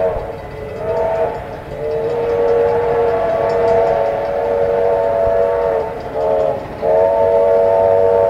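Steam locomotive chime whistle sounding a chord of several notes in a series of long and short blasts as it blows for a road crossing, over the low rumble of the approaching train. There is a short blast about a second in, a long one from about two seconds to six, another short one, and a long one from about seven seconds on.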